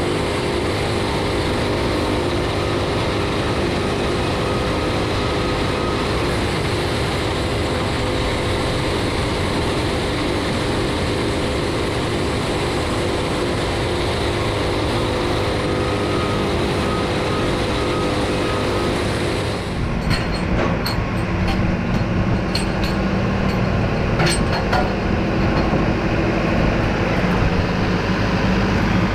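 Band sawmill running steadily, its engine making a constant pitched hum over the saw noise. About twenty seconds in the sound changes abruptly to a lower, rougher rumble with scattered sharp knocks.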